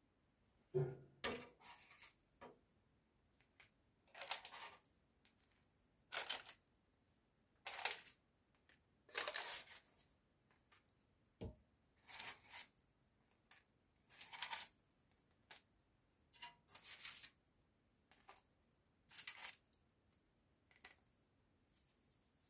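Crisp baked flatbreads being lifted off baking paper and set down on a wire cooling rack: a series of short, dry scraping and crackling sounds, one every second or two, with a single light knock partway through.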